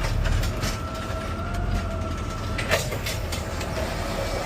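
Garbage truck's diesel engine running with a steady hydraulic whine from the automated side-loader arm lifting a trash cart. A sharp knock comes near the middle as the whine stops.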